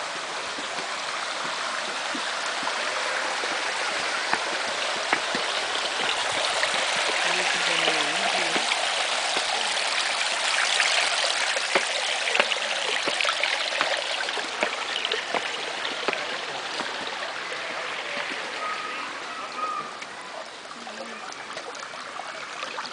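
Water running fast down the open stone channels of the Alhambra's Water Stairway: a steady rush of flowing, splashing water. It is a little louder in the middle and eases somewhat near the end.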